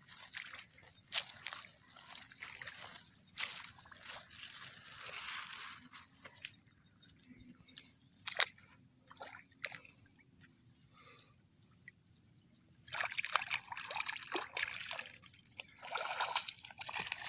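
Shallow rice-paddy water sloshing and trickling in scattered splashes, growing busier and louder for a few seconds near the end.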